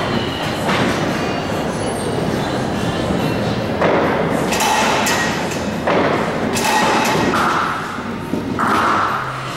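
Bowling-alley din: thuds of balls hitting the wooden lanes and clatter of pins, several separate hits, over a steady echoing hall noise.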